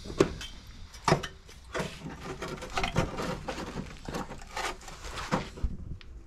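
Irregular metallic knocks and clinks, about one a second, from a sheet-steel repair patch being tapped and worked into a curve.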